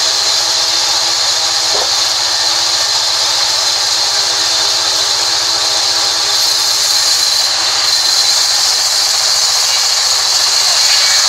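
Sawmill band saw running and cutting lengthwise through a mahogany log: a loud, steady, high-pitched hiss from the blade, unbroken throughout.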